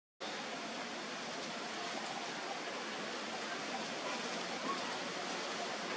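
Steady, even hiss of outdoor background noise, with no distinct event standing out.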